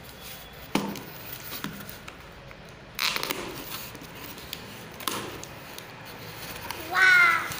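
Packing tape on a cardboard parcel being cut and peeled: scattered scrapes and small rips, with a rasping tear about three seconds in. Near the end comes a short squeal that rises in pitch, the loudest sound.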